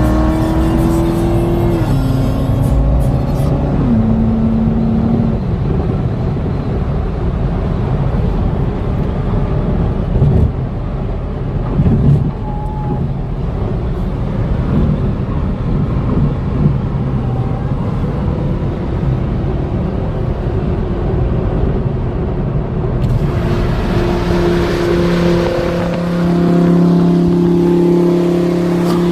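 Lamborghini Huracán's V10 engine running hard at freeway speed over steady road noise. Its pitch steps down twice in the first few seconds as it shifts up, with a few sharp exhaust crackles around ten and twelve seconds in. It climbs in pitch and gets louder again near the end.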